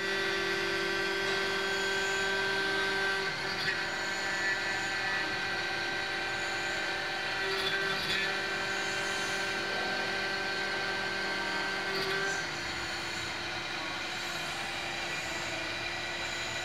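CNC milling machine running, its spindle turning an end mill that cuts a metal block held in a vise. It makes a steady whine with a few faint ticks, easing slightly about three seconds in and again about twelve seconds in.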